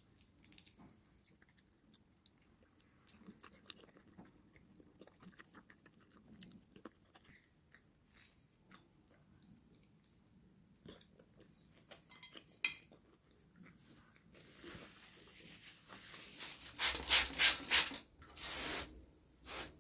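Faint chewing with small clicks of chopsticks on a plate while eating soft steamed rice rolls. Near the end come a few loud, short hissing bursts and then rubbing, from cleaning a chrome shower valve.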